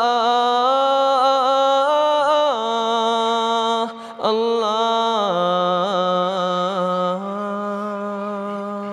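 Two men's voices singing an unaccompanied nasheed in long held notes with small ornamental turns, pausing briefly for breath about four seconds in. The singing gets a little softer in the last couple of seconds.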